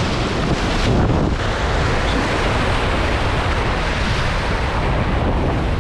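Sea surf washing and breaking over the boulders of a rock jetty, with wind buffeting the microphone.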